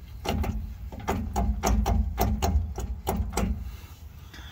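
Differential gears being rocked back and forth by hand with the cover off, the teeth knocking through their lash in quick metallic clicks, about three or four a second, stopping about three and a half seconds in. The play is in the spider gears of an open differential, which the mechanic takes to be worn out.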